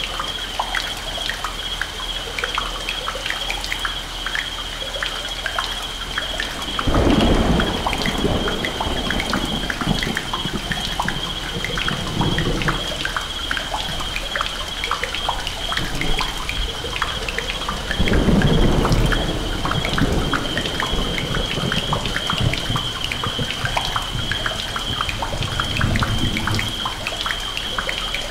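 Layered thunderstorm and leaky-house soundscape: rain and many scattered drips ticking throughout, with a steady high-pitched drone underneath. Thunder rolls about 7 seconds in and again about 18 seconds in, with fainter rumbles between and near the end.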